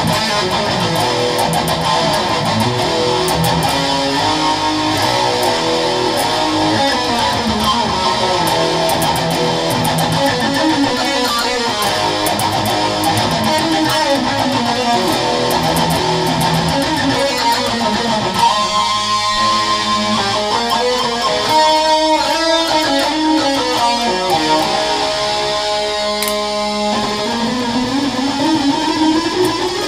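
Electric guitar played as a fast, improvised metal-style lead, with quick picked runs of notes. Later the notes come more separately and are held longer, and near the end a run climbs steadily in pitch.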